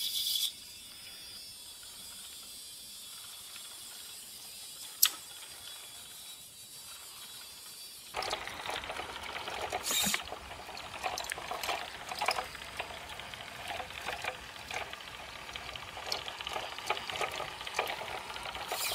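Radio-controlled model truck driving over cobblestone paving while towing a trailer: a busy mechanical rattle of its gears and drivetrain, with clicking as the wheels roll over the stones. It starts suddenly about eight seconds in, after a quiet hiss broken by a single click.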